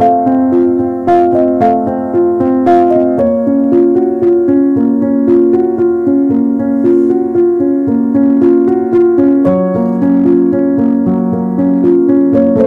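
Background music: a piano playing a melody over chords at an even loudness.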